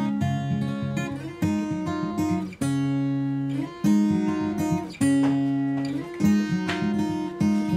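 Background music: held chords that change about every second or so, each struck with a sharp attack.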